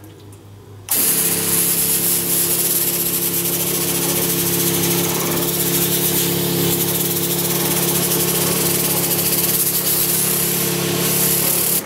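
Electric sprayer pump switches on about a second in and runs steadily, a hum with a hiss of spray as it pushes clean rinse water through the wand, then cuts off just before the end.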